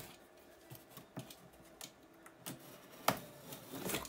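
Box cutter slitting the packing tape on a cardboard box: small scrapes and clicks, a sharper crack about three seconds in, then a longer scraping cut near the end.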